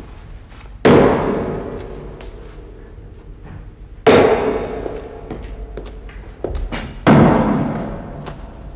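Slow, regular booming strokes, three of them about three seconds apart. Each hits suddenly and rings out over a second or two with a low pitched hum, and faint lighter knocks fall between them.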